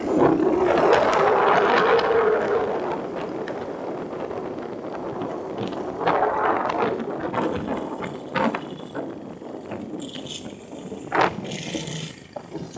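An engine running on a test, loud and revved in the first couple of seconds, then settling lower with a few brief surges in revs.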